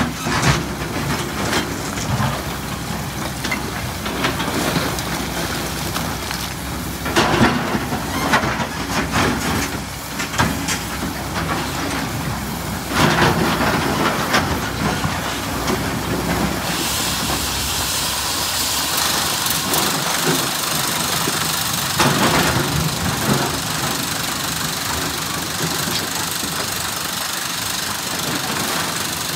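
SANY SY365H excavator's diesel engine running under load with hydraulic hiss, broken by three louder crashes of andesite rock being scooped and dumped. A stronger hiss comes in about halfway through.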